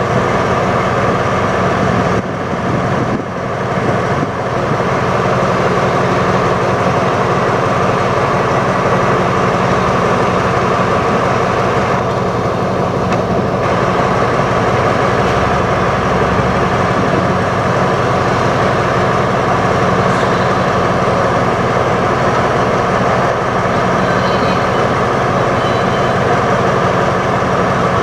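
Diesel train engine running steadily with a loud, even drone that holds one pitch throughout.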